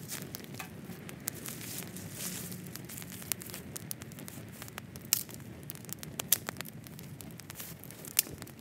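Open wood fire crackling, with sharp irregular pops from the burning sticks over a steady low rush of flame; the loudest pops come about five, six and eight seconds in.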